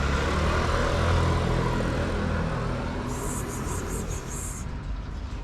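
Low drone of a passing motor engine, loudest in the first second or so and then fading away. A high, rapidly pulsing buzz joins it for a second and a half around the middle.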